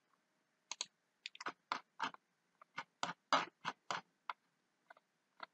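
Clicking on a computer: about fifteen short, sharp clicks of mouse buttons and keys at irregular intervals, some in quick pairs.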